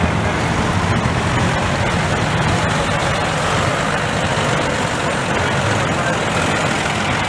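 Vintage farm tractor engine running steadily at low speed as the tractor drives slowly past.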